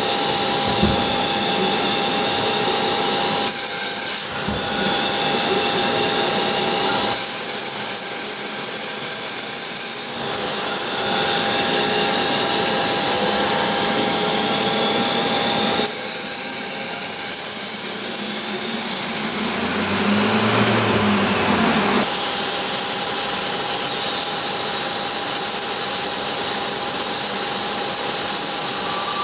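CNC lathe machining a yoyo workpiece: a steady machine whine under a hissing cutting noise that changes abruptly every few seconds as one cut or tool gives way to the next.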